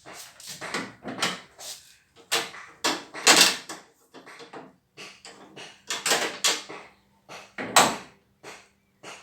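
Irregular series of clunks, clicks and rattles from hands handling the car's front body and lamp parts, with a few louder knocks about three and a half and eight seconds in.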